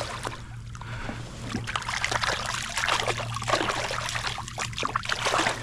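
Shallow water splashing and trickling in small, irregular splashes and drips, as water is disturbed around a wading angler and a freshly released fish.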